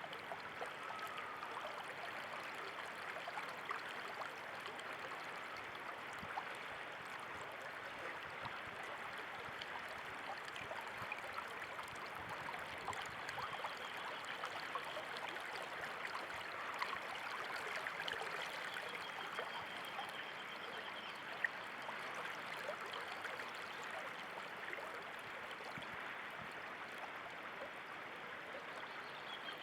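Running water, a steady rushing and trickling like a small stream.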